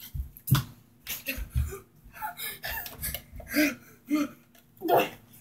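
A child's voice in short, wordless bursts, with a few low thumps in the first two seconds.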